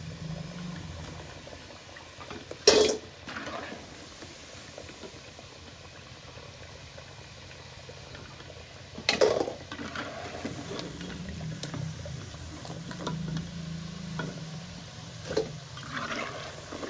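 Plantains frying in lard in a metal pan, a steady bubbling sizzle, with two sharp knocks, about three seconds in and about nine seconds in.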